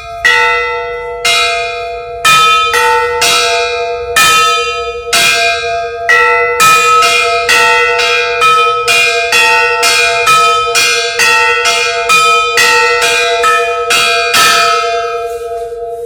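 Cut-off oxygen-cylinder sections rung like bells, used in Siberia in place of church bells: a peal of struck metallic tones at several pitches over one sustained lower tone. The strikes come about once a second, quicken to two or three a second from about six seconds in, and the last one rings out near the end.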